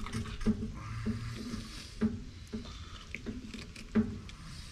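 Knife cutting raw armadillo meat on a plastic cutting board: soft slicing and handling noises with a few sharper taps of the blade or meat on the board.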